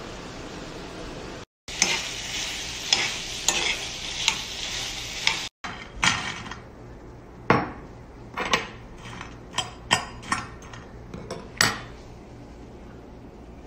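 Food sizzling in oil in a frying pan, with a spell of stirring. After a cut come several light separate knocks and rustles as french fries are dropped and spread by hand into a glass baking dish.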